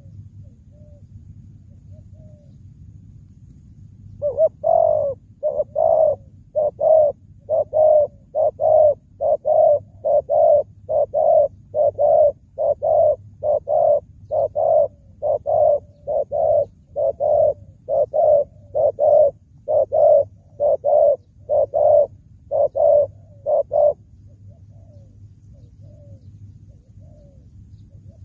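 Spotted dove cooing: a fast, loud run of short coos, about two a second, starting about four seconds in and stopping some twenty seconds later, with a few faint coos before and after.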